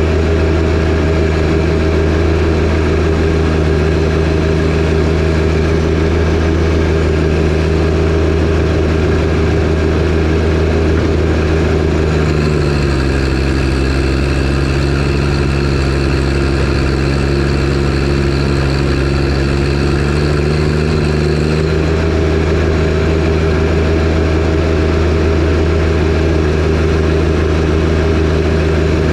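John Deere 1025R compact tractor's three-cylinder diesel engine running steadily with the 47-inch snowblower engaged. About halfway through, the engine note drops lower for roughly nine seconds, then rises back to its earlier pitch.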